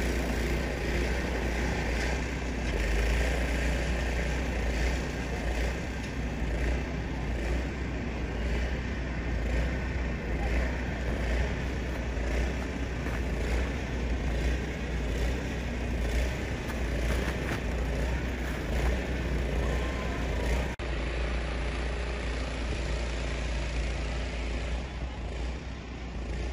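Steady city background noise, a continuous traffic rumble with a strong low hum underneath, broken by a brief dropout about three-quarters of the way through.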